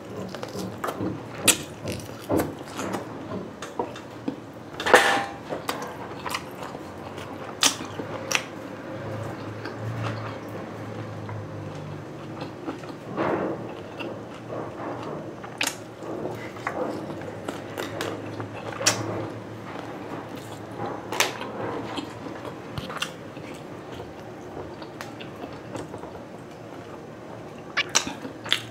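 Chewing and biting of grilled skewered street food (pork barbecue, chicken intestine, chicken feet): irregular sharp mouth clicks and smacks, the loudest about five seconds in.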